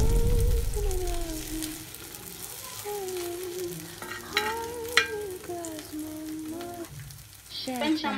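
Metal spoon scraping and tapping on a hot cast-iron dosa tawa while an egg-and-Maggi-noodle mixture fries in oil and ghee, being spread into a round omelette, with sharp taps about four and five seconds in.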